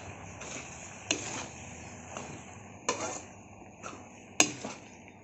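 Metal spatula scraping and knocking against a metal kadhai as sauced macaroni is stirred, a handful of irregular clinks and scrapes, the sharpest about four and a half seconds in, over a low steady hiss.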